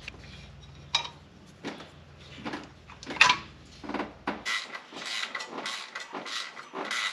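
Hand tools and metal parts clinking and knocking while a power steering pump is fitted in a car's engine bay. A few separate knocks come in the first half, then a quicker run of clicks, about three a second.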